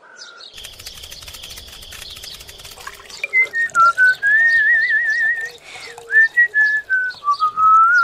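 A whistled tune starts about three seconds in: one wavering line of pitch that glides up and down and trills. Before it there is a rapid scratchy clicking with a hiss.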